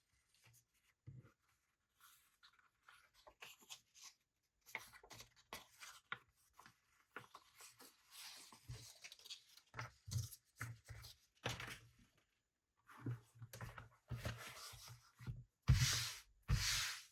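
Hand tools scratching, scraping and cutting on leather on a work surface: a run of short irregular strokes with soft knocks, and two longer, louder strokes near the end.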